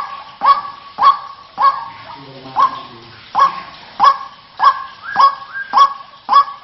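White-breasted waterhen (ruak-ruak) calling: a harsh call repeated evenly about twice a second, the recording used as a lure.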